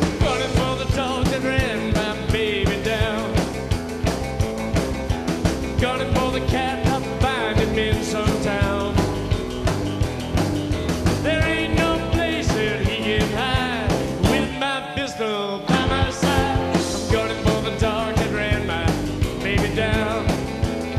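Rock and roll band playing an instrumental intro: lead electric guitar with bending notes over bass, rhythm guitar and drums, with a short break in the bass and drums about fifteen seconds in.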